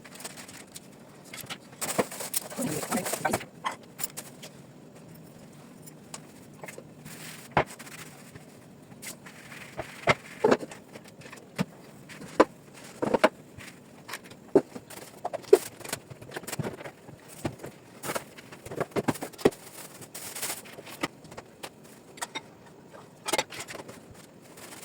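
Dishes and kitchenware being handled: irregular clinks, knocks and scrapes, a few of them ringing briefly.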